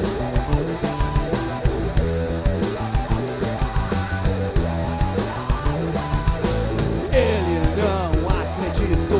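Rock band playing live: electric guitars, bass and a drum kit keeping a steady beat with cymbal hits. About seven seconds in, the cymbals drop back and melodic lines that bend and waver in pitch come to the front.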